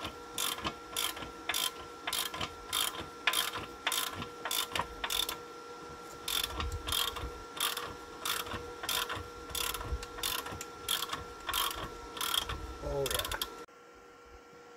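Regular sharp mechanical clicking, about two to three clicks a second, over a faint steady hum. Near the end the clicking cuts off abruptly and only the quieter hum remains.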